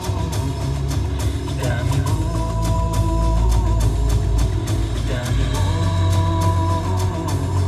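Electronic dance music played loud through an Electro-Voice ZLX-12P 12-inch powered loudspeaker and an EKX-18SP 18-inch powered subwoofer, with a heavy bass line under a steady beat.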